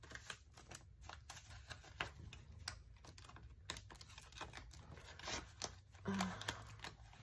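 US paper banknotes being handled and counted by hand and slid into a plastic binder envelope: a run of quick, crisp paper rustles and flicks, a little denser about five to six seconds in.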